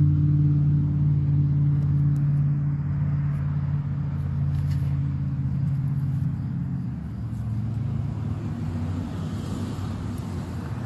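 An engine running with a steady low hum. Its pitch shifts slightly and it gets a little quieter over the second half.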